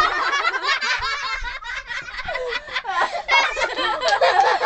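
People laughing and giggling in high-pitched, rapid bursts.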